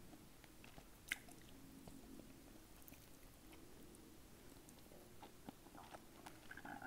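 Faint close-up chewing of Popeyes fried chicken: soft wet mouth clicks, with one sharp click about a second in and a run of clicks near the end.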